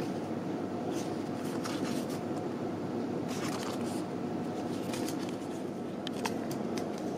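A stiff, paper-backed nylon repair sheet being handled and flexed in the hands, giving scattered crinkles and clicks in a few short clusters over a steady low hum.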